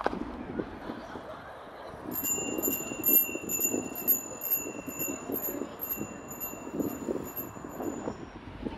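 A small high-pitched bell ringing without a break for about six seconds, starting about two seconds in, with a quick pulse about two or three times a second, over a low outdoor rumble.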